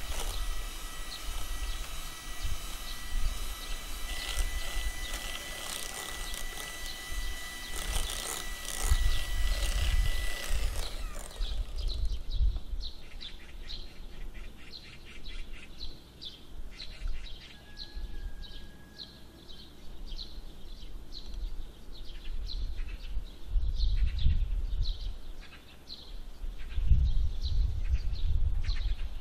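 Electric hand mixer running steadily as its beaters whip cream cheese in a glass bowl, then switching off about eleven seconds in. Afterwards faint, repeated high chirps continue, and near the end there are low bumps and scraping as a silicone spatula folds the mango batter in the bowl.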